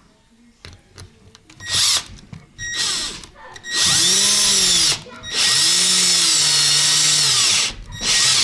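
Cordless drill-driver driving screws down through the floor into the wooden joists beneath: a couple of short bursts, then two long runs of a few seconds each with the motor's pitch rising and falling, and a final short burst near the end.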